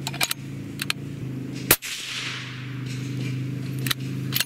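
A single shot from a suppressed Savage 110 bolt-action rifle in .308 Winchester about 1.7 seconds in: one sharp crack with a short fading echo after it. A few lighter clicks come before and after the shot, and a four-wheeler's engine runs steadily in the background.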